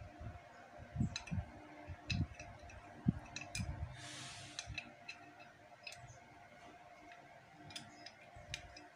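Small metal parts of a Yamaha Mio M3 cylinder head's valve gear clicking and clinking as a rocker arm and rocker shaft are handled and pushed into place by hand, with a short scraping sound about four seconds in and a few dull knocks.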